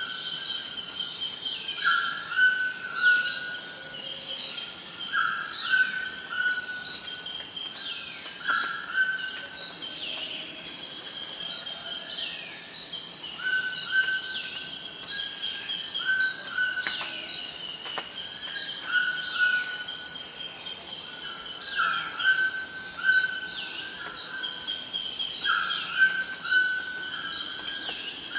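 Rainforest soundscape: a toucan gives a repeated short call of two to four notes every few seconds over a steady high insect drone, with many short descending chirps from other birds.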